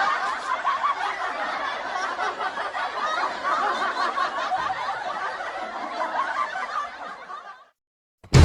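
Meme laughter sound effect: a group of people laughing and snickering, fading a little near the end and then cutting off.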